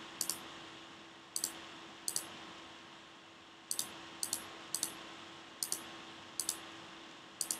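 Computer mouse button clicks: about nine short, sharp clicks spaced unevenly, several of them close pairs, over a faint steady electrical hum.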